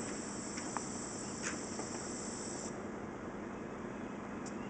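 Norfolk Southern diesel-electric locomotives idling with a steady low hum, joined by a high hiss that cuts off suddenly a little over halfway through, and a few light clicks.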